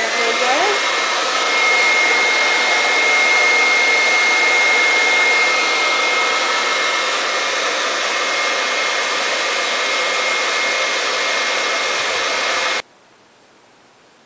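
Hand-held hair dryer blowing steadily with a high whine; it comes up to speed at the start and cuts off suddenly near the end.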